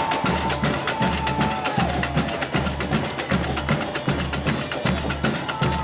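Samba batucada drum ensemble playing a samba beat: a steady low bass-drum pulse under a fast, even stream of sharp snare and small-percussion strokes.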